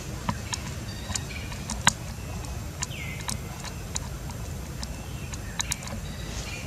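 Irregular wet clicks and smacks of a young macaque biting and chewing a ripe mango, the loudest about two seconds in, over a steady low background rumble. A few faint high chirps and one short falling whistle about three seconds in, typical of birds.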